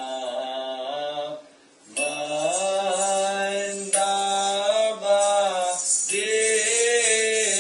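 Slow, chant-like Buddhist devotional singing (charya giti) by a single voice, with long held and gently sliding notes. The singing breaks off for about half a second about a second and a half in, then resumes.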